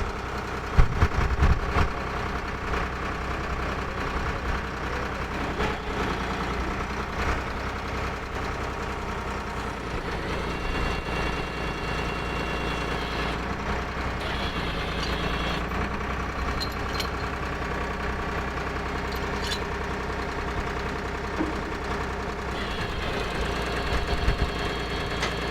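Drill rig's engine running steadily, with a few knocks about a second in. A higher whine comes in twice, near the middle and near the end.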